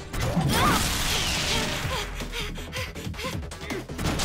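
Cartoon battle sound effects over dramatic background music: a loud crash right at the start, then further hits and whooshes.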